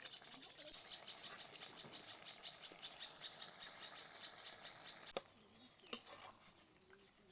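Faint, rapid chirping call of a small animal, evenly pulsed at about six pulses a second, which stops after about five seconds; a single sharp click follows.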